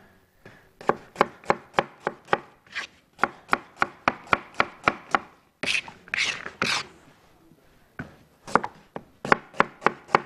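Kitchen knife chopping onion on a cutting board: a quick run of sharp knocks, about four a second, broken around six seconds in by a short scraping sound, then more chops near the end.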